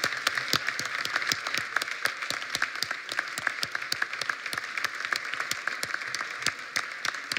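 Audience applause: many hands clapping steadily, easing off slightly near the end.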